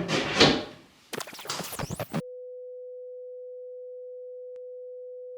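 A short run of noisy handling sounds and a swish, then a single steady pure electronic beep tone that starts about two seconds in and holds for about three and a half seconds. The tone is a comic edited-in sound effect marking that something has gone wrong.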